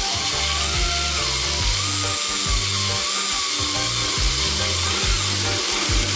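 Corded power drill boring a half-inch hole through a steel Jeep JK frame rail, running steadily with a faint wavering whine as the bit cuts. Background music with a steady bass line plays along.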